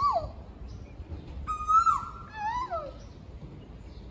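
Asian koel calling: the falling end of one call as it opens, then one full two-note "koo-oo" about a second and a half in, each note held and then dropping in pitch, and the next call starting just at the end.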